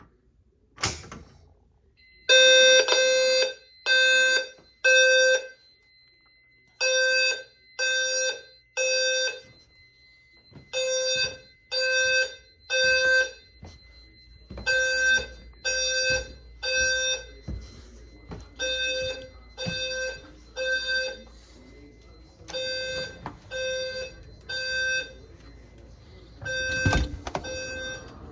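Fire alarm sounding the temporal-3 evacuation signal: three buzzy pulses about a second apart, then a pause, repeating every four seconds. A sharp click about a second in comes just before the alarm starts, and the pulses grow fainter from about halfway.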